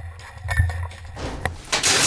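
Footsteps and scuffs on dry leaves and broken boards, with a few sharp clicks, then a loud rushing hiss about two-thirds of the way in.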